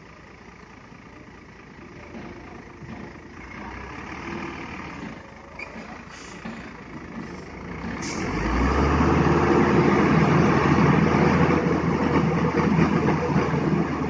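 Hino 500 concrete mixer truck's diesel engine running low, then about eight seconds in it revs up and holds at a higher, much louder speed.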